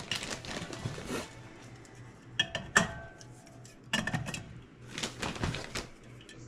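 Dishes and utensils clinking and knocking as they are handled and set down, a series of separate clinks, some with a brief ring.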